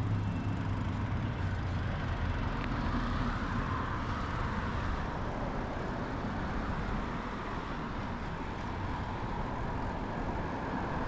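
Steady wind and rolling noise from riding a mountain bike, picked up by a helmet chin-mounted camera: an even rush with no breaks.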